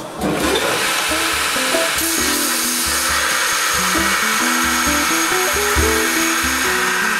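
Bench-mounted grinding machine with a metal workpiece pressed against it, giving a steady abrasive hiss that grows stronger about two seconds in. Background music with a beat plays throughout.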